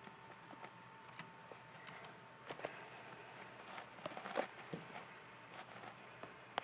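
Faint scattered clicks and rustles over a faint steady high hum, with a cluster of slightly louder clicks a little after four seconds in.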